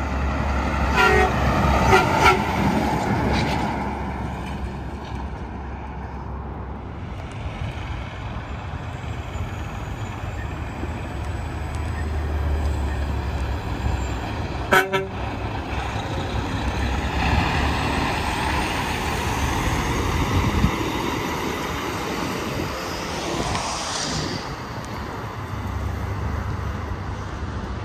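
Interstate highway traffic with tractor-trailers passing, tyre and engine noise swelling and fading over a steady low rumble. Short horn toots sound about one to two seconds in, and there is a sharp click about halfway through.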